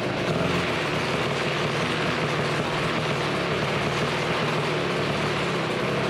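AirJet DLE170 paramotor's twin-cylinder two-stroke engine running steadily with its propeller spinning in the cage.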